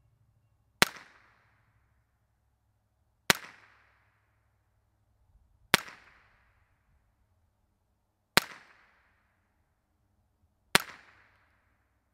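Five unsuppressed shots from a 16-inch Remington 597 semi-automatic .22 LR rifle firing CCI standard-velocity ammunition, about two and a half seconds apart, each a sharp crack with a short echo trailing off. This is the bare-muzzle baseline, each shot metering about 140 dB.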